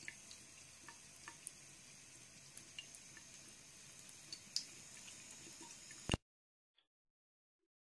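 Faint trickle of a thin stream of tap water running into a bathroom sink, with scattered light ticks and plinks; it cuts off abruptly about six seconds in.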